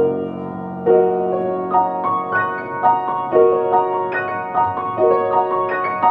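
Solo upright piano playing a Romantic-era concert piece. A low chord opens and rings on, then a melody of single notes and chords follows at roughly two to three strikes a second, each note ringing into the next.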